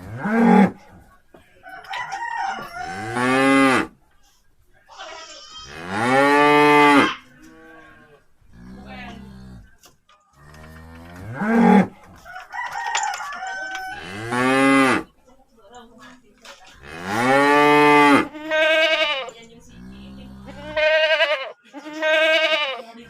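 Cattle mooing repeatedly, about ten calls each roughly a second long, several opening with a low closed-mouth hum before rising and falling in pitch.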